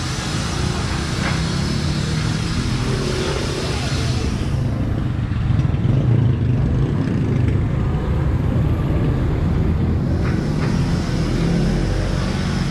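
Steady low rumble of road traffic, swelling about halfway through.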